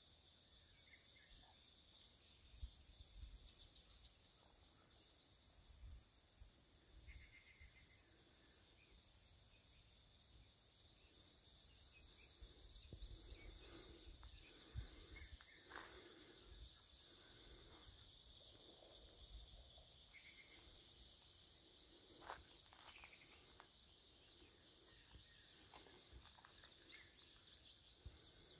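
Faint, steady insect chorus: a continuous high-pitched drone at two pitches, with a few short chirps and occasional soft low knocks.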